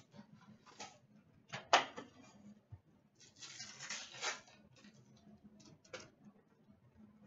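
Cardboard card boxes and foil packs being handled and opened: scattered light clicks and rustles, one sharp loud snap a little under two seconds in, and about a second of rustling or tearing around the middle.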